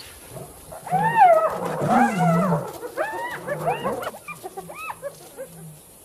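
Spotted hyenas yelping, several overlapping rising-and-falling calls over low growling. They start about a second in, are loudest in the first couple of seconds and thin out toward the end.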